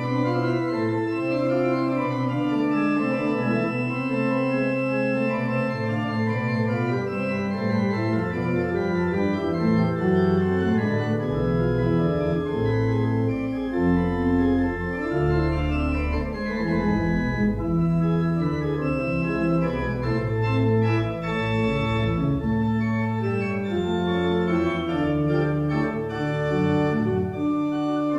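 Pipe organ playing a piece of music in sustained chords that change every second or so, with deep bass notes coming in about eleven seconds in.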